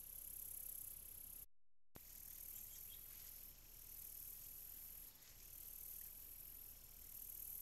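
Faint insect chorus, a high, thin trilling that swells and fades every couple of seconds over a low background hum, with a brief cut to total silence about one and a half seconds in.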